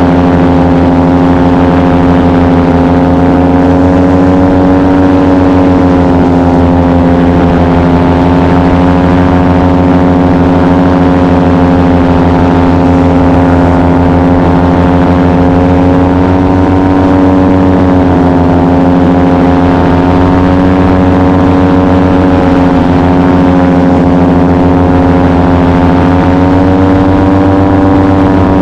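Paramotor engine and propeller running steadily in flight, heard up close from the pilot's position, its pitch easing slightly up and down a few times with small throttle changes.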